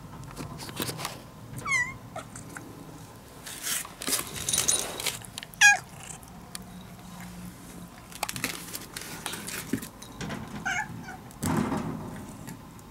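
Domestic cat meowing three times in short calls, the loudest about halfway through, asking to be let out of the door, with scuffling noises between the calls.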